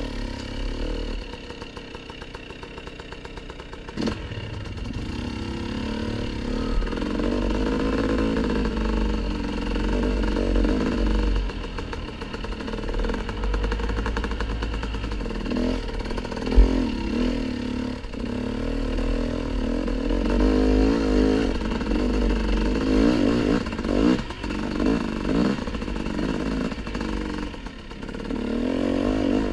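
Dirt bike engine running as it is ridden, revving up and falling back over and over as the throttle is worked, and quieter for a few seconds near the start. Sharp knocks about four seconds in and again around the middle.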